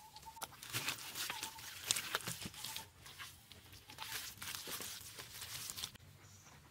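Handfuls of wet mud-and-straw plaster thrown and slapped onto a mud wall by hand, a fast irregular run of wet slaps that stops about six seconds in.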